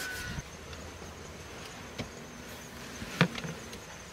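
Handling noise of a padded fabric mat being laid over folded car seats, with a small click about two seconds in and a sharper click a second later.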